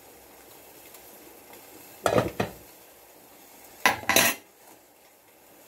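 Cookware clatter in two short bursts, about two and four seconds in: a fork and a glass pot lid knocking against a pot of boiling potatoes as the lid is set back on.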